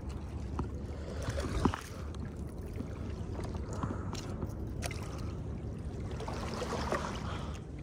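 Water sloshing and lapping, with scattered small clicks and a sharper knock about a second and a half in.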